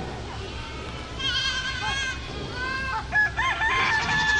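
Farm animals calling: a goat bleats about a second in, then a rooster crows in the second half, several short notes ending in one long held note.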